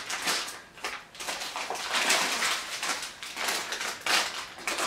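Packaging being handled: irregular crinkling and rustling, in quick bursts that come and go.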